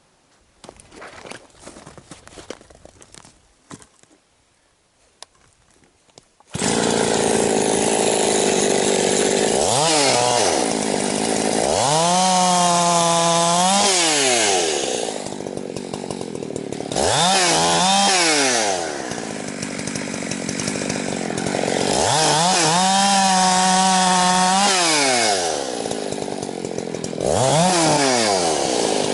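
Husqvarna 365 two-stroke chainsaw revving, cutting in abruptly after several seconds of near quiet. The engine climbs steeply to high speed, holds there for a second or two, then drops back, about four times over.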